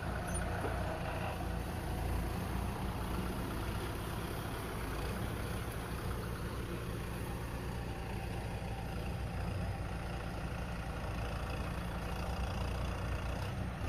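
Kubota tractor diesel engine running steadily at low revs, with no revving up.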